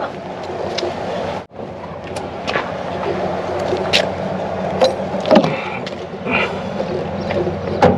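A vehicle engine running steadily with a low hum, and a few scattered knocks and clunks from objects being handled and loaded.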